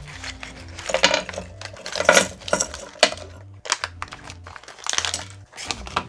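Small electronic kit parts clicking and clinking against a hard surface as they are handled and unpacked, with some crinkling of the plastic anti-static bag.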